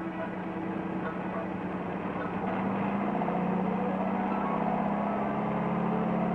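Porsche Super 90 air-cooled flat-four engine running on a test stand during its first run-in. It speeds up and gets louder about two and a half seconds in.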